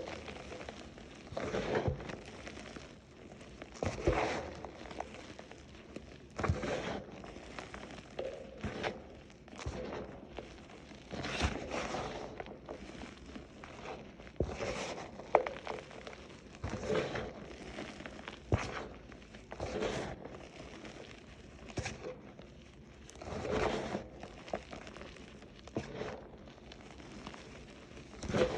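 Crunchy reformed chalk, green and glitter-topped, crunching in irregular sharp crunches every second or two, with softer crumbling between them.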